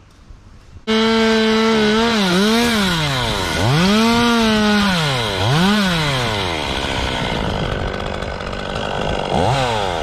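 Top-handle chainsaw cutting through a tree limb, starting suddenly about a second in. Its pitch sags and recovers several times as the chain bites into the wood, and it revs up briefly near the end.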